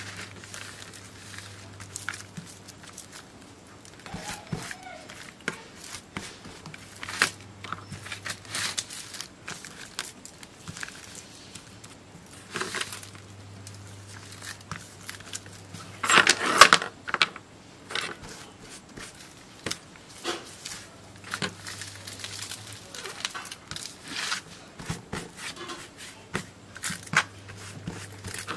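Paper being folded and pressed by hand around a flat lithium-polymer battery pouch, with intermittent crinkling, rustling and small taps on a wooden bench; the loudest rustle comes about sixteen seconds in.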